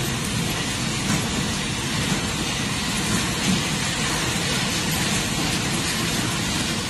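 Car-carrier freight wagons rolling past at speed: a steady rushing noise of steel wheels on rail, with a few louder knocks.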